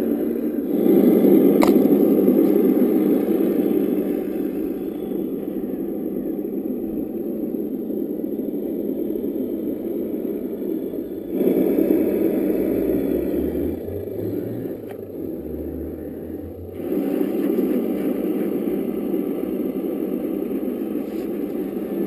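Simulated diesel engine sound from the EssOne sound module in a Tamiya CC-01 RC Unimog, played through the model's small on-board speaker as the truck drives. It changes abruptly about a second, eleven seconds and seventeen seconds in. Between thirteen and seventeen seconds a low engine note climbs and falls back like revving.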